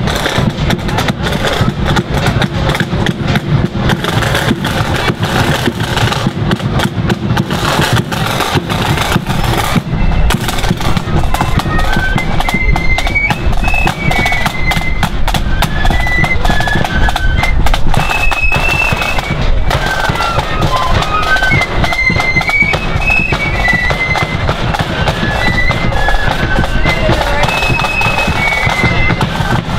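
Marching flute band playing: side drums and a bass drum beat a brisk march, and a high flute melody joins about twelve seconds in and carries on over the drums.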